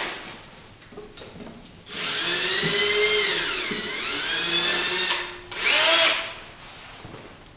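Power drill/driver running in two bursts, unscrewing the fasteners of an air compressor's plastic shroud. The first burst lasts about three seconds, its motor whine sagging in pitch and climbing back. The second is a short, louder burst near the end.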